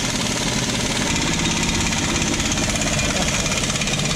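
Shop air compressor running steadily with a fast, even rattling pulse.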